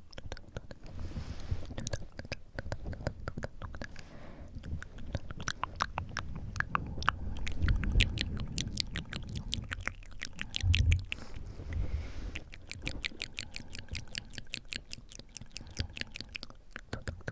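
Close-miked wet mouth sounds: quick runs of moist clicks and smacks from lips and tongue, with breath blowing onto the microphone as low rumbling gusts about eight and eleven seconds in.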